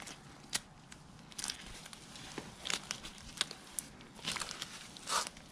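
Scattered small metal clicks and glove rustles from hands working a C-clamp fitted with a socket, pressing the master link of a new motorcycle drive chain.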